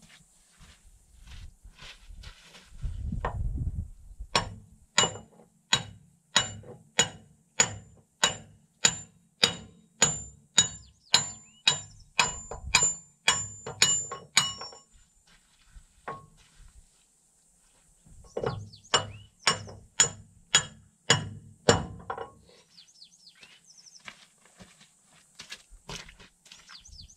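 A hammer striking steel in steady repeated blows, about two a second, each ringing: a long run of some twenty hits, a pause, then a shorter run of about seven. The blows are working a backhoe boom pin loose.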